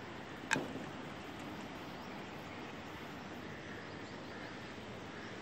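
Quiet outdoor farmyard ambience: a steady faint hiss, with one sharp click about half a second in.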